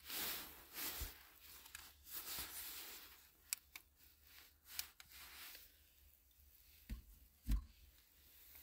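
Faint rustling and handling noises, with a few sharp clicks and two soft thumps near the end, the second the loudest.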